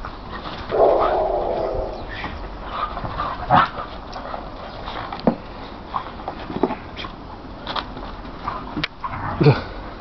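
Siberian huskies vocalising as they play together: one held whine about a second in, then short yips and barks scattered through.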